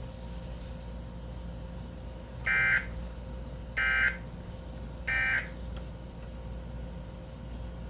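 Emergency Alert System end-of-message signal: three short bursts of buzzy digital data tones, each about a third of a second, a little over a second apart, marking the close of the alert. A faint steady hum runs underneath.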